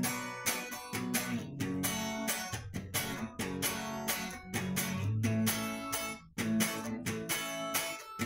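Stratocaster-style electric guitar improvising in a sertanejo style, picked notes and chord strokes in a steady rhythm, with short stops about six seconds in and near the end.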